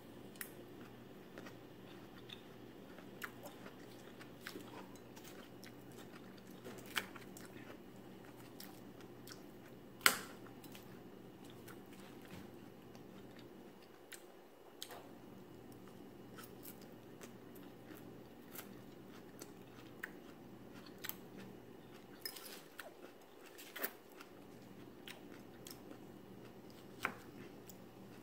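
A person chewing and biting food, with scattered sharp clicks of a metal fork against the dish; the loudest click comes about ten seconds in. A low steady hum runs underneath.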